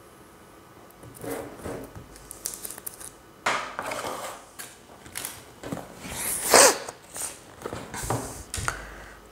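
Packaging of an OPPO Reno 5 Pro being handled as the black inner cardboard box is slid out of its teal outer sleeve. It gives a run of rasping scrapes and rustles of cardboard and plastic wrap, starting about a second in, with a few sharper scuffs.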